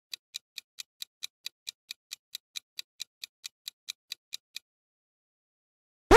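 Quiz timer sound effect: rapid, even clock-like ticking, about four or five ticks a second, that stops about four and a half seconds in. A louder sound effect starts just at the very end.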